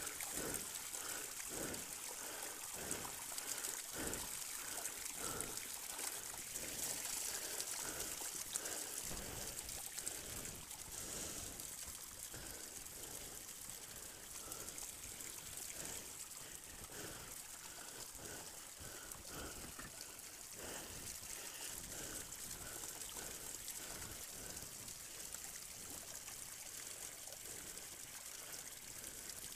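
Water trickling and running steadily, with soft knocks or splashes about twice a second at first, fewer later.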